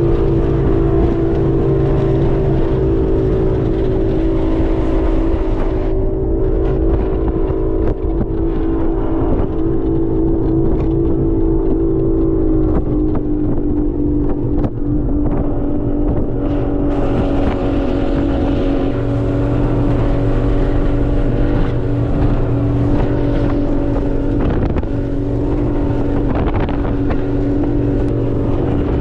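A 21-foot Checkmate speedboat's engine running steadily at speed across choppy water, with wind buffeting the microphone. The engine note drops slightly about twelve seconds in.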